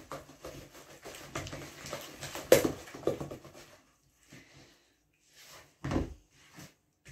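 Silicone spatula stirring thick chocolate cake batter in a plastic mixing bowl: irregular scraping and knocking, with a sharp knock about two and a half seconds in. A single dull thump comes near the end.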